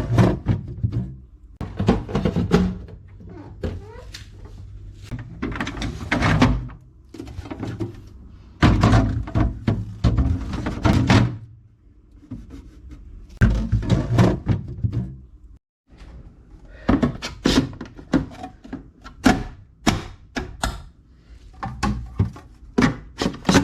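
Repeated knocks, clunks and clatter of plastic fridge drawers and food containers being handled and pushed back into a refrigerator.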